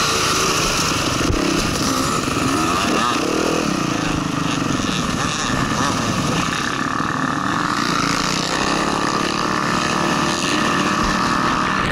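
Motocross dirt bike engine running as the bike rides the track, the revs rising and falling a few seconds in, heard from a helmet-mounted camera.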